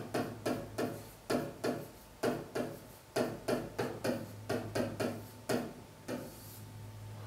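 Pen tip tapping and scraping on an interactive touchscreen display as a word is handwritten: a quick, irregular run of short ticks, about fifteen in six seconds, which then stops. A steady low hum runs underneath.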